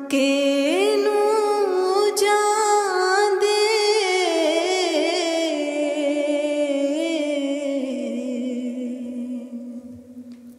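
Devotional singing: one voice holds a long drawn-out note with vibrato, stepping up in pitch about half a second in and sliding slowly down from about four seconds, then fading near the end.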